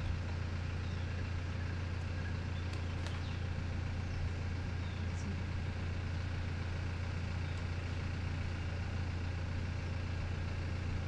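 Steady low drone of a moving vehicle, engine and road noise running evenly with no change in speed, and a few faint ticks about three and five seconds in.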